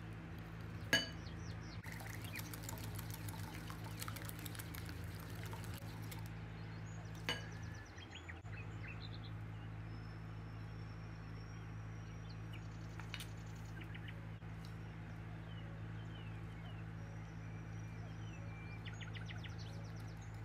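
A whisk stirring wet batter in a glass bowl as liquid is poured in, with two sharp clinks, about a second in and again about seven seconds in. A steady low hum and faint bird chirps sit underneath.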